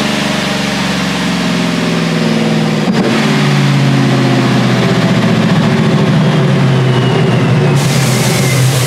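Chevrolet 5.3-litre V8 with a ProCharger supercharger running hard on a chassis dyno, with a steady exhaust note. There is a sharp click about three seconds in, and a thin whine falls in pitch through the second half.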